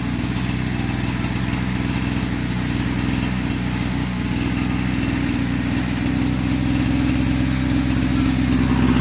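Small petrol engine of a 30-litre motorized sprayer running steadily, getting a little louder toward the end.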